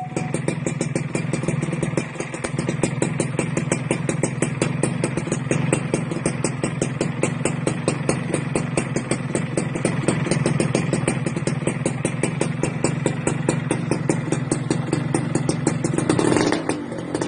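Yamaha F1ZR's single-cylinder two-stroke engine idling through its exhaust, a steady rapid popping, with a short rise in revs near the end.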